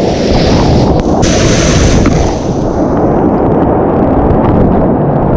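Whitewater rapids rushing around a kayak, with splashing water buffeting the action camera's microphone: a loud, dense, rough rumble that never lets up, with a brighter hiss of spray for a second or so a little after the start.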